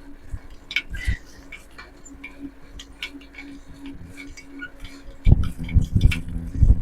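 Light, irregular ticks and clicks from a bicycle being ridden, a bike the rider says is loose and in need of service. About five seconds in, heavy low thumps begin.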